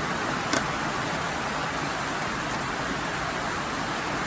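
Heavy rain falling steadily as an even hiss, with one sharp click about half a second in.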